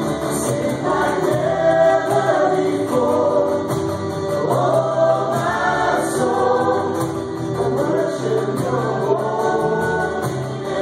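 A choir singing gospel-style worship music over instrumental backing.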